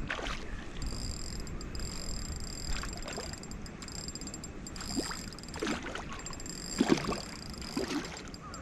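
Several short, irregular splashes of water at the pond's surface, the loudest about seven seconds in, over a steady background with a faint high whine.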